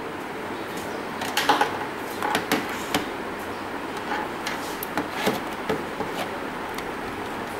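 Scattered light clicks and knocks of hands unplugging test leads and lifting a digital multimeter off the trainer panel, over a steady background hiss.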